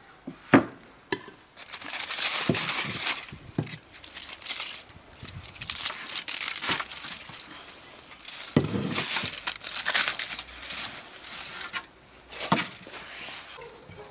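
Aluminium foil crinkling and rustling in several long stretches as it is peeled back from a roast goose on a metal baking tray. A few sharp knocks sound in between, the first just after the start as the tray is set down on the table.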